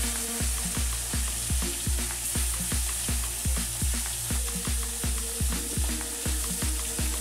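Hot oil sizzling as pieces of fish fry in a steel wok and are turned with a spatula. Background music with a steady thumping beat plays over it.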